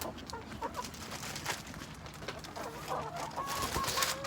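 Backyard chickens clucking in short, scattered calls as they gather for food, with a few sharp clicks among them.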